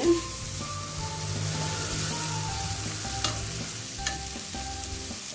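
Diced calabresa sausage, bacon and garlic sizzling as they fry in a pot, stirred at first with a silicone spatula. Two sharp clicks about three and four seconds in.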